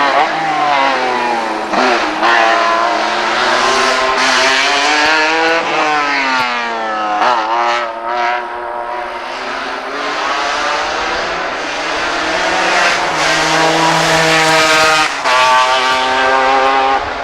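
Group CN hillclimb sports prototype's 3-litre racing engine at full throttle. It climbs in pitch and drops sharply at each gear change, about two, seven and fifteen seconds in, with a long fall in pitch as it lifts off around six seconds in.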